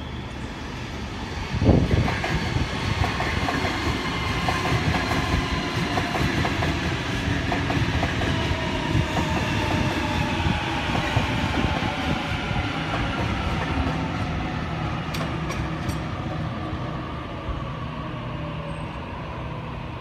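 Sydney Trains Waratah double-deck electric train passing, its wheels clattering over rail joints and points with a loud clunk about two seconds in, and a motor whine falling slowly in pitch.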